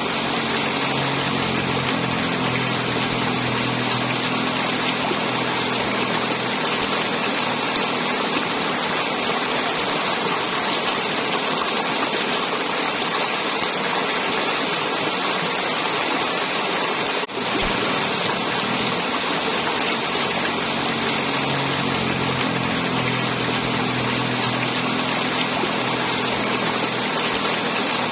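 River water flowing steadily with a gurgling rush. A faint low hum sits under it in the first several seconds and again near the end, and there is a momentary dropout about two-thirds of the way through.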